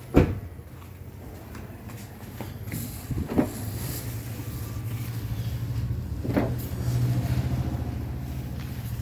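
Three sharp knocks, the first the loudest, as subwoofer enclosures and their wiring are handled, over a steady low hum.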